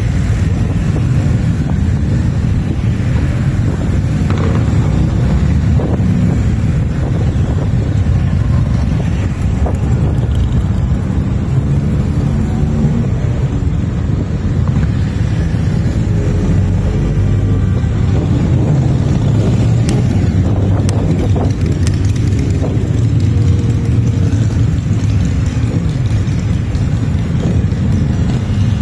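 A column of motorcycles, a mix of cruisers and sport bikes, riding slowly past one after another. Their engines run in a continuous low drone, rising and falling in pitch as individual bikes pass.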